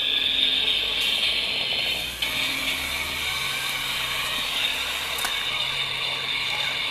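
Battery-powered model diesel locomotive's motor and gearbox whirring steadily as it runs along the garden-railway track, pushing a snow plough through snow.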